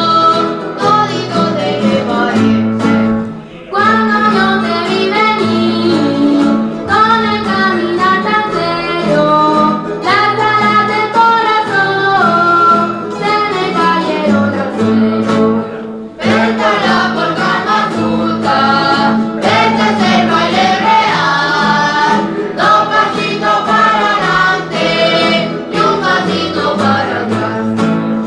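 Folk group singing in chorus, men and women together, over guitars and other plucked strings, playing a polka-mazurka. The singing breaks off briefly twice between phrases while the strings carry on.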